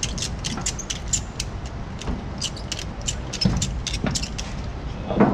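Metal ratchet buckle of a tie-down strap being worked to cinch the strap tight, clicking in short irregular runs over a steady low rumble.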